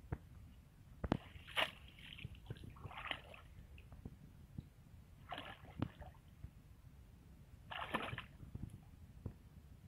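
Shallow water sloshing and splashing around a person wading through it, with several short splashes a couple of seconds apart and a longer one near the end.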